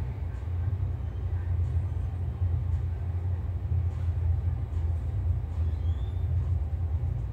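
Steady low rumble of the NASTAR human-rated centrifuge running during a profile, heard from its control room.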